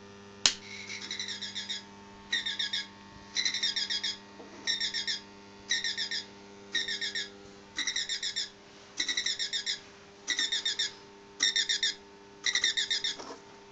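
Quartz alarm clock's electronic alarm beeping in repeated groups of rapid high-pitched pulses, about one group a second, eleven groups in all. A steady low hum runs underneath.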